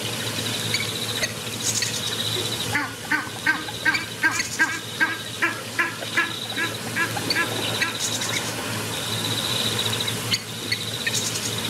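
Insects trilling steadily in the background, with a run of about fifteen short, squeaky animal calls, roughly three a second, from about three seconds in until past the middle.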